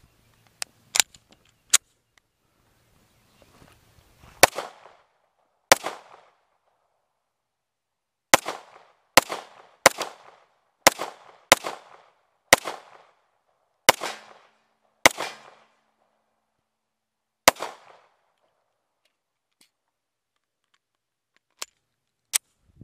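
Eleven shots from a .45 ACP semi-automatic pistol, fired at an uneven pace over about fourteen seconds, each trailing off in a short echo. A few light handling clicks as the pistol is loaded come before the first shot, and two faint clicks come near the end.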